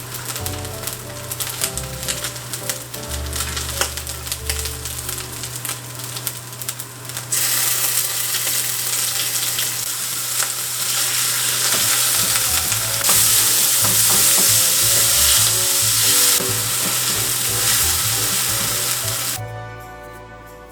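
Food frying in a pan, sizzling and crackling; about seven seconds in the sizzle suddenly gets louder and denser, and it stops shortly before the end.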